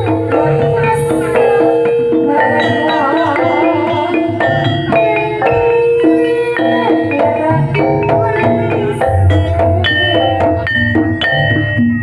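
Gamelan-style ensemble music accompanying a Bantengan show: struck metal keyed instruments play a busy repeating melody over drum beats, with cymbal-like splashes and a wavering melodic line joining briefly about a third of the way in.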